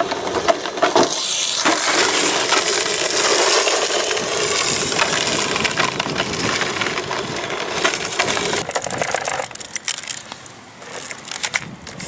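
Exceed RC Ace Tiger rally car's tyres scrabbling over loose gravel, stones crunching and spraying for about nine seconds. It then drops to quieter scattered clicks and ticks near the end.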